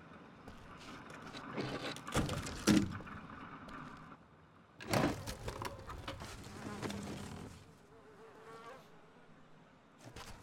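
A small creature's buzzing, chittering cries from the film's sound design, loudest in bursts about two and five seconds in.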